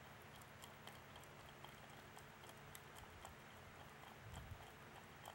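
Faint, irregular ticking of a hand screwdriver turning a screw into the base of an LED warning beacon, over quiet room tone.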